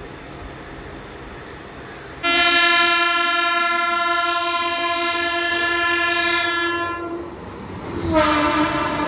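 Mumbai suburban local train's horn: one long steady blast of about five seconds, then a second blast starting about a second later that dips a little in pitch as it begins.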